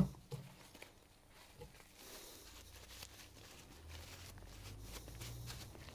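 Faint rag-on-metal rubbing and small handling clicks as excess grease is wiped off a motorcycle rear suspension linkage, opening with a sharp click, over a low steady hum.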